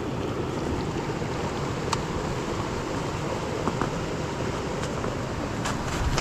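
Steady rushing wind noise on the microphone, heaviest in the low end, with a few faint scattered clicks.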